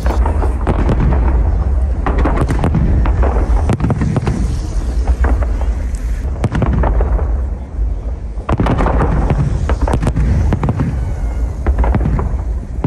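Fireworks display bursting overhead: repeated deep booms and sharp cracks, coming in clusters one after another, over a continuous low rumble.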